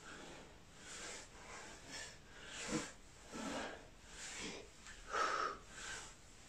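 A man breathing hard from exertion during bodyweight squats, a short puffing breath roughly every half second to second.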